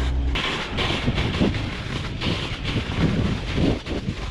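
Snowscoot's boards scraping and chattering over the snow while riding downhill, with irregular rattles and wind buffeting the camera microphone.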